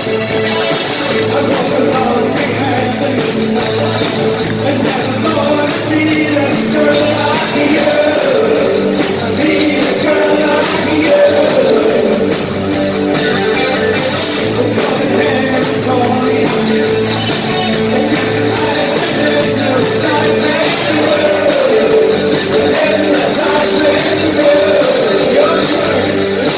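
Live new wave rock band playing loudly, with guitar and a singer's voice over the band.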